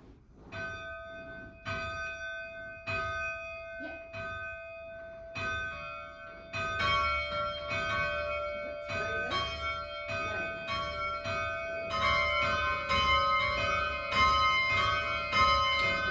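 Large tower bells chimed by hand on their ropes: a single bell strikes about once a second, then more bells join one after another until several are sounding in overlapping, ringing strokes, growing louder.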